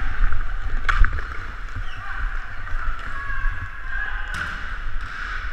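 Hockey rink play heard through a moving camera's microphone: a steady low rumble and hiss of motion and wind on the microphone, broken by two sharp knocks, about one second in and again after about four seconds.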